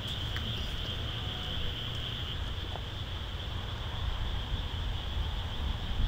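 Steady chorus of night insects, a continuous high buzz, over a low rumble that grows toward the end.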